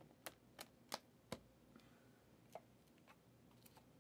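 Sharp light clicks of trading cards and plastic card sleeves being handled: four in the first second and a half, then a few fainter ones spaced out.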